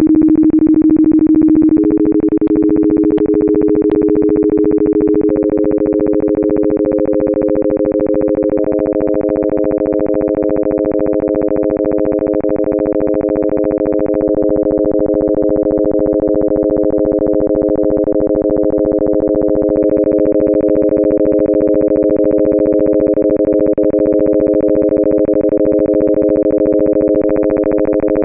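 Computer-generated steady sine tones from a harmonic-addition demo: a 300 Hz tone, joined by a 400 Hz tone about two seconds in, a 500 Hz tone about five seconds in and a 600 Hz tone about nine seconds in, which together make one composite tone. Later the phase of the 600 Hz component is changed a few times; the four tones hold steady and only the faint upper overtones shift slightly, since timbre depends on the harmonics' amplitudes, not their phases.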